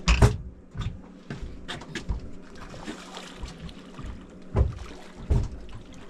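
Water slapping and sloshing against a boat hull, with irregular knocks and thumps, the loudest right at the start and two more near the end.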